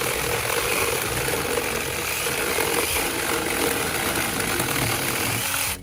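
Taranzy 6-inch battery-powered mini chainsaw running steadily at full speed with a chain rattle, then cutting off suddenly near the end.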